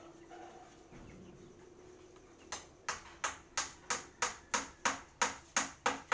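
A run of about a dozen sharp knocks struck in a steady rhythm, roughly three a second, starting about two and a half seconds in, each ringing briefly, like repeated hammer blows.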